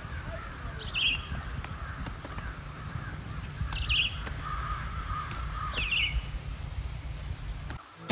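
A bird calling outdoors: three short, harsh, high calls a few seconds apart, over a faint steady outdoor background. The sound drops away just before the end.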